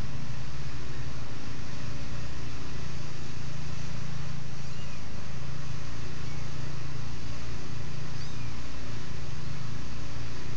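A young kitten mewing faintly a couple of times, thin and high, over a steady low droning hum.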